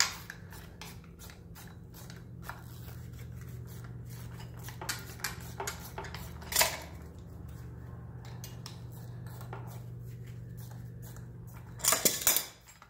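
Irregular metallic clicking of a hand wrench turning the long puller bolts that draw a VW manual transmission's drive flange out, with a cluster of louder clicks near the end as the flange's retaining clip lets go. A steady low hum runs underneath.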